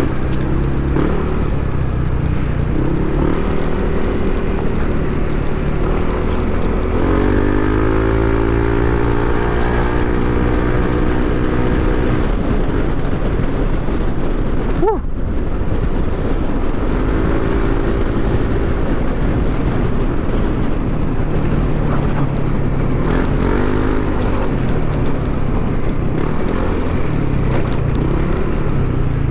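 Yamaha NMAX 155 scooter's single-cylinder engine running on the ride through a gutted ("kalkal") stock exhaust, over steady wind and road noise. Its pitch rises as it speeds up about seven seconds in, and again in shorter pulls later, with one sharp click about halfway.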